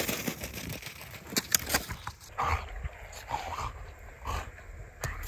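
German Shepherd whining: a handful of short, high whimpers in quick succession from about two and a half seconds in, after a couple of sharp clicks about a second and a half in.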